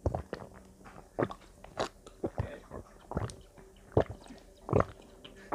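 Two people gulping oil straight from bottles: a string of short swallowing gulps, one or two a second, with quiet in between.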